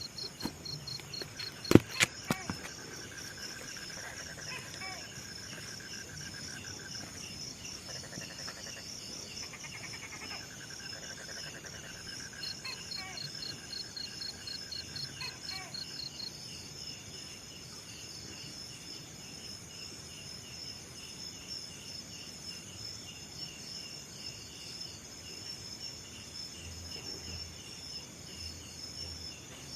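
Crickets trilling steadily in several fast, high-pitched pulsing rows, with a lower pulsed trill that comes and goes through the first half. A couple of sharp clicks sound about two seconds in.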